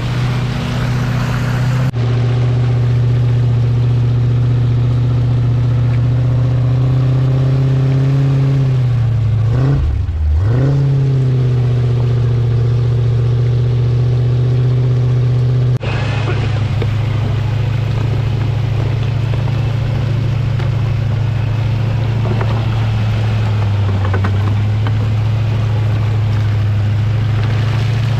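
Off-road 4x4 engine running steadily under load, its pitch dropping and then climbing back about ten seconds in. The sound changes abruptly twice, about two seconds and sixteen seconds in.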